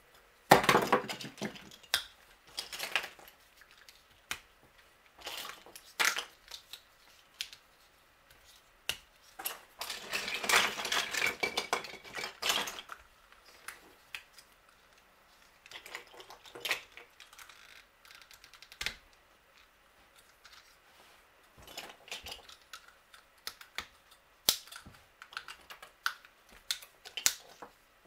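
Plastic Construx building pieces clicking and snapping together as they lock into place, with clatter of hands rummaging through a loose pile of parts, in scattered spells with quiet gaps between.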